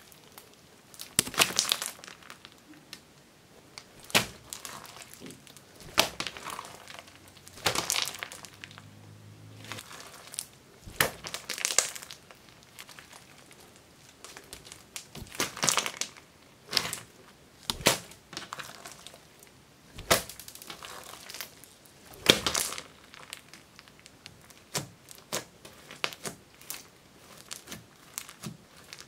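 Blue fluffy slime with foam beads being stretched, folded and pressed by hand, giving bursts of crackling and popping every second or two.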